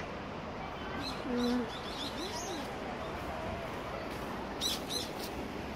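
Small birds chirping in quick high bouts, about a second in and again near the end, with a brief low hooting note about a second and a half in.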